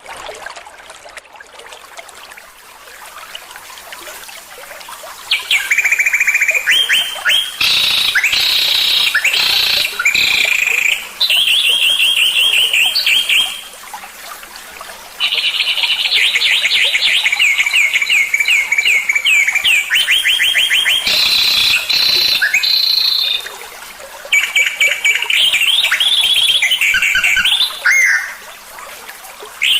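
A songbird singing fast, high repeated trills in phrases of a few seconds with short pauses between. The song starts about five seconds in, after faint background sound. This is a masteran recording, birdsong played to caged songbirds to teach them.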